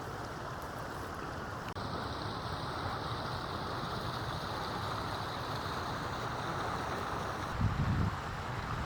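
A steady rushing outdoor hiss of wind across open mountain country, with wind gusting against the microphone in low rumbles near the end.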